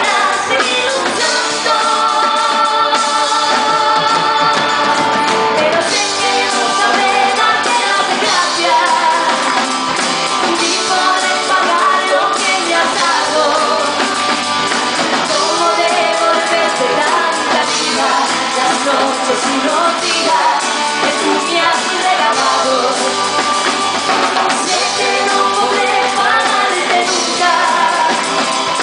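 Female vocalist singing a pop song live with a band, with drums and guitar behind her voice.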